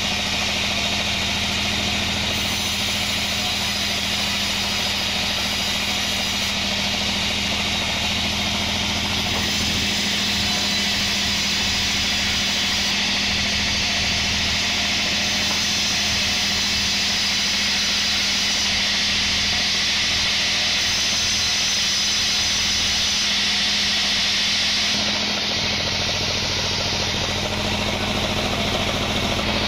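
Band sawmill running steadily, its blade cutting lengthwise through a kenanga log over a constant engine hum with a high hiss from the cut. About 25 seconds in the sound shifts, with more low rumble.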